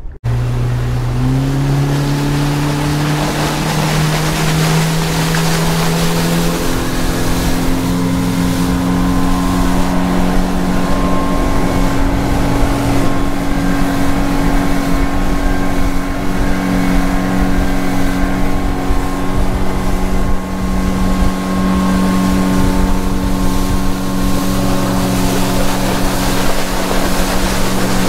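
Yamaha 50 hp outboard motor running the boat at speed: its pitch climbs as it speeds up in the first couple of seconds, rises again about six seconds in, then holds steady. Wind and rushing water from the hull run under it.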